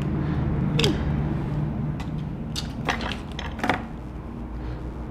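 A handful of light, sharp clicks and taps as small parts and a tool are handled on a disassembled iPod touch during repair, over a steady low hum.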